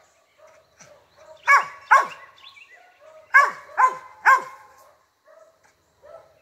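Cur dog barking up a tree at a squirrel it has spotted, the bay of a treeing dog: five sharp barks, two about a second and a half in, then three more close together a little later, each dropping in pitch.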